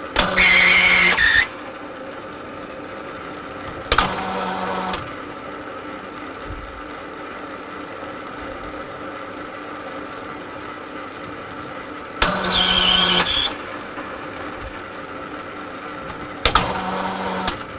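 Metalworking lathe running with a steady hum while screw-cutting a thread in brass. Four times there is a louder, harsh rasp about a second long as the tool works along the thread, the first and third with a high squeal.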